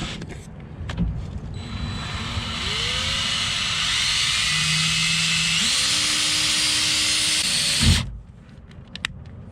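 Cordless power drill running for several seconds: its motor whine steps up in pitch partway through, then stops with a knock near the end.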